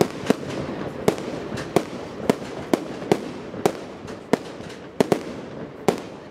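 Fireworks display finale: a rapid, uneven string of sharp bangs from fireworks bursting, about two a second, over a continuous background of noise.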